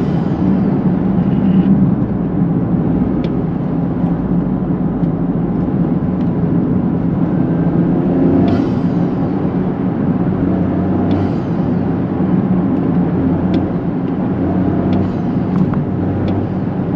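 Toyota GR Corolla's turbocharged 1.6-litre three-cylinder, fitted with a K&N cold-air intake, running under way, heard inside the cabin with the windows up. It is a steady engine drone, with a brief high falling whoosh about eight seconds in and again about eleven seconds in.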